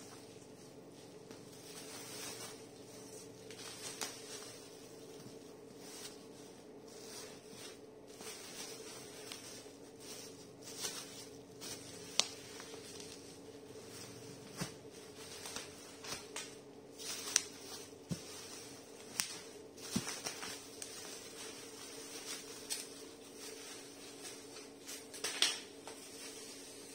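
Cardboard box and black plastic bubble wrap being handled and folded: scattered rustles and crinkles with a few sharp clicks, over a steady low hum.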